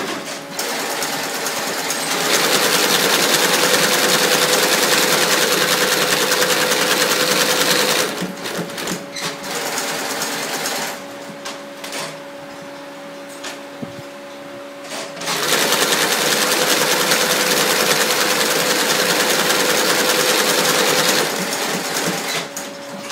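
XS0012 industrial lockstitch sewing machine stitching through a leather moccasin, running fast in two long stretches of six to seven seconds each. A steady hum and a few clicks fill the pause between the runs.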